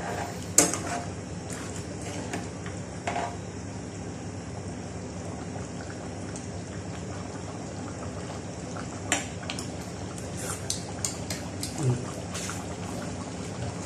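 Coconut-milk sauce of chicken Bicol Express simmering in a pot, bubbling steadily, while a metal spoon stirs it and clinks against the pot. The clinks come singly early on and as a cluster of quick taps about nine to twelve seconds in.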